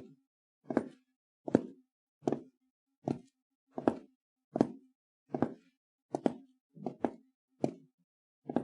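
A steady series of short, sharp knocks, evenly spaced at about one every three-quarters of a second, around a dozen in all.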